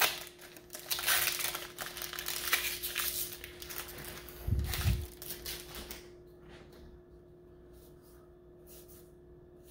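Foil trading-card booster-pack wrapper crinkling and tearing as it is opened by hand, with a low thump about four and a half seconds in. After about six seconds the crinkling stops, leaving only a few faint clicks of cards being handled.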